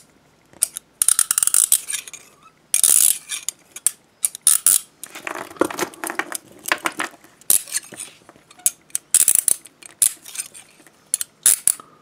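American Handcuff Co. leg irons ratcheted shut several times, the toothed bow clicking past the single lock pawl in quick runs of bright, distinct metallic clicks.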